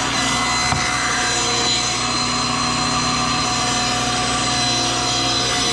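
Table saw ripping a cedar board lengthwise: a steady motor whine under the noise of the blade cutting the wood. The blade is one the owner says needs changing.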